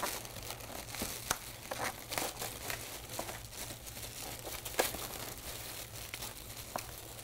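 Plastic packaging wrap crinkling as it is handled while packing tape is pulled off it, with irregular sharper snaps, the loudest about five seconds in.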